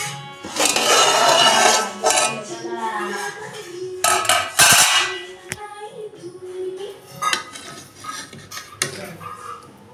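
Aluminium cooking-pot lid clattering as it is lifted off, with two loud bursts of metal clatter, then a spoon scraping and knocking against the aluminium pot while layered rice is mixed.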